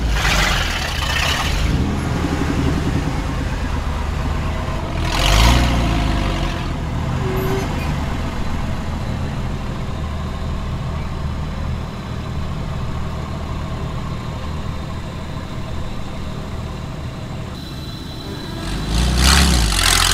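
Engines of cars and trucks driving slowly past one after another, among them a lifted 1990s Ford F-series pickup and a Ford Mustang convertible. The engine sound swells loudly with a rising pitch as a vehicle revs past about five seconds in, and again near the end.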